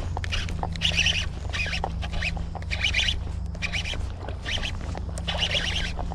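A baitcasting reel cranked in short bursts, about one a second, while a topwater walking bait is worked with rod twitches and slack reeled in between. A steady low hum runs underneath.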